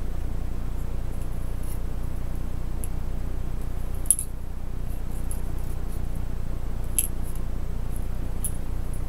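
Scattered light clicks and taps of laptop internals being handled, a metal shield plate and the heatsink assembly, over a steady low hum. The sharpest click comes about four seconds in, with others near seven and eight and a half seconds.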